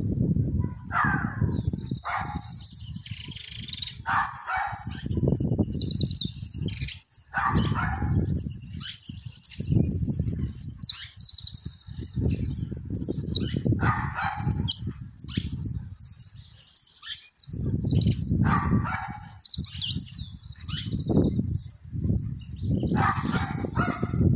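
A caged mixto amarillo, a small yellow finch, singing continuously in quick, high, trilled phrases, one after another with hardly a pause. Low gusty rumbles of wind on the microphone come and go underneath.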